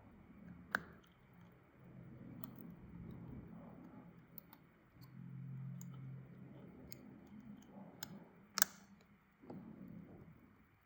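Small clicks and taps of tools and parts during the reassembly of an iPhone 11 Pro into a new housing. There are scattered faint ticks, a sharp click about a second in, and a louder click near the end.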